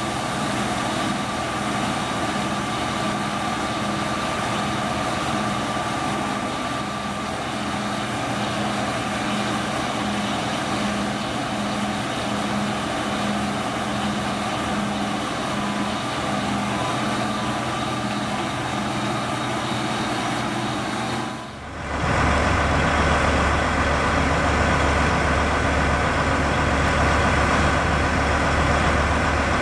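Heavy diesel engines of a tracked tractor and a semi truck idling steadily, with a faint regular pulse in the sound. About 21 seconds in it changes to a louder, deeper diesel rumble heard close by.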